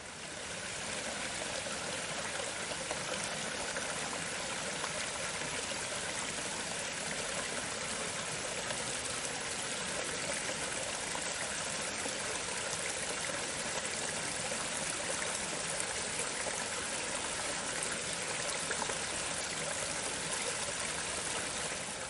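Small forest stream running over rocks: a steady, even rush of water.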